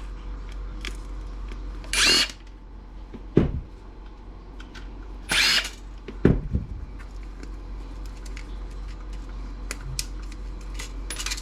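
Electric screwdriver running in two short bursts, about two seconds in and again about five and a half seconds in, backing out screws from the dock's housing. Two low knocks and light clicks and taps come from parts being handled.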